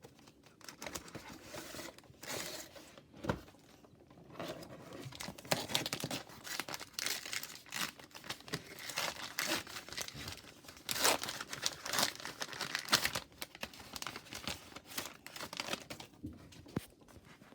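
Crinkling and tearing of a trading-card pack wrapper, with cards being handled, in irregular rustling bursts that grow busier a few seconds in.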